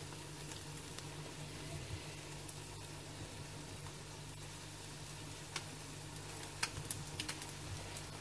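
French toast slices sizzling steadily as they fry in a frying pan, with a few short clicks in the second half as the slices are turned over.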